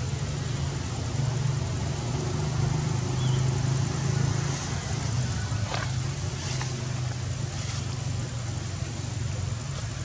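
Steady low rumble of a running engine, with a few faint clicks about halfway through.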